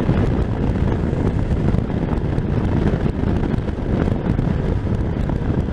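Wind buffeting the microphone of a riding motorcyclist, a steady low rumble mixed with the motorcycle's engine and road noise, coming through despite a furry deadcat windshield.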